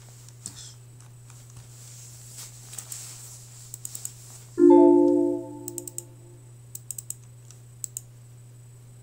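Mouse clicks, then about four and a half seconds in a Windows error chime sounds once and fades over a second or so, the alert for a program's runtime-error dialog. More clicks follow, over a steady low hum.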